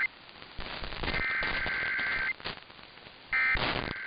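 Emergency Alert System SAME header: bursts of two-pitch warbling digital data tones about a second long with about a second's gap between them, over radio static and crackle. The bursts encode the alert that is about to be broadcast, here a severe thunderstorm warning.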